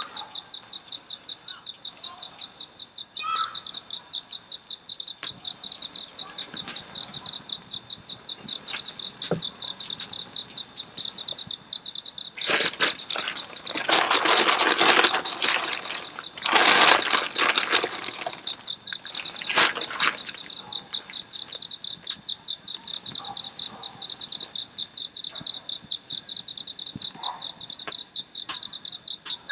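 Insects chirping in a steady, even pulse of about three chirps a second. Several seconds of louder, hissing noise about halfway through cover it.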